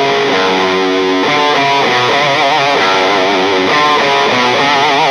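Background music led by guitar: a run of sustained notes, some held notes wavering in pitch near the middle and again near the end.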